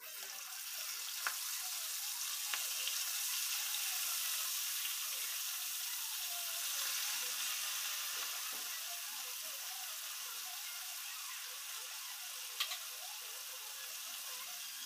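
Pork chops frying in hot oil in a pan: a steady sizzle that starts abruptly and eases slightly later on. A few sharp clicks are heard, one about a second in, another a second later and one near the end.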